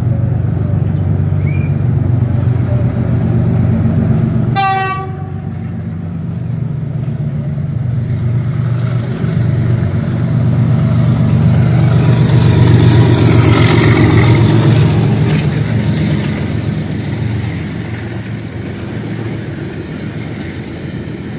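Pakistan Railways GEU40 diesel-electric locomotive approaching and passing with a steady low engine drone, and a brief horn toot about five seconds in. The sound is loudest around the middle as the locomotive goes by, with wheel-on-rail hiss, then eases to the rolling of coaches and container flat wagons.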